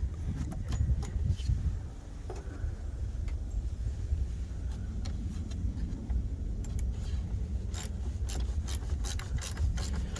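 Light metallic clicks and rattles of a socket wrench and a battery terminal clamp being fitted onto a car battery's positive post, coming more thickly near the end, over a steady low rumble.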